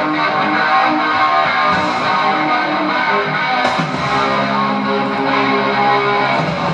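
Guitar music: guitars strumming sustained chords, which change a little over halfway through.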